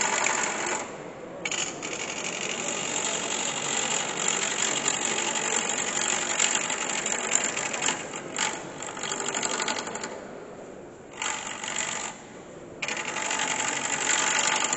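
Gouge cutting a spinning wooden blank on a wood lathe, a steady scraping cut that throws off shavings. The cut stops briefly four times, about a second in, twice around the middle and once more shortly before the end.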